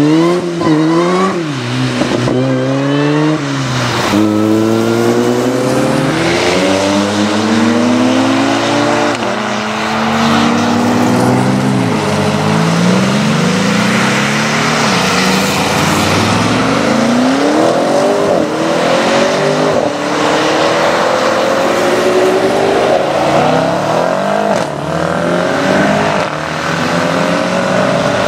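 Sports cars, among them an Opel Speedster and a BMW 8 Series, accelerating hard one after another, each engine rising in pitch and dropping back at every upshift, over the hiss of tyres on a wet road.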